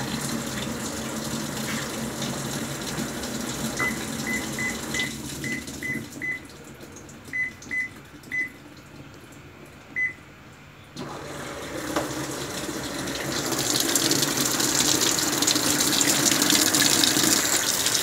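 Toshiba top-loading washing machine filling: water runs in, then about a dozen short high control-panel beeps sound while the inflow falls quiet. A few seconds later the water starts again and pours into the drum louder near the end.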